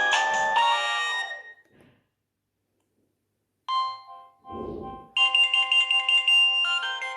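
Nokia 6030 ringtones from the phone's speaker: a melody with several notes at once ends and dies away about two seconds in. After a short silence come a brief tone and a low thump, and about five seconds in the next ringtone melody starts.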